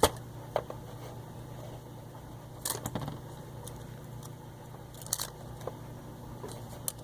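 Two-conductor appliance cord being split by hand, its wires pulled apart: scattered small crackles and clicks, over a steady low hum.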